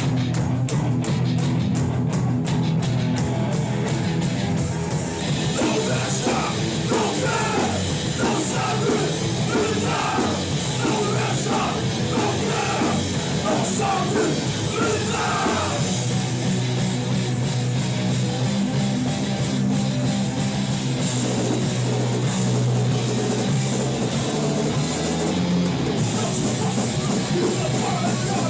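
Hardcore punk band playing live, with distorted electric guitars, bass and drums. Shouted vocals come in from about five seconds in to around sixteen seconds, then the band plays on without them.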